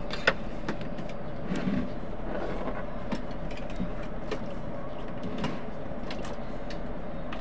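Small handling noises from an MR16 LED bulb and a wire test lead: a sharp click just after the start, then a few fainter clicks and taps, over a steady background hum.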